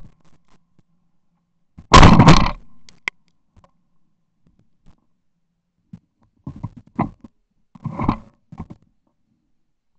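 A shotgun shot at clay targets about two seconds in, loud enough to overload, with a short echo tail, followed by a sharp click. Several quieter bangs and knocks follow between about six and nine seconds in.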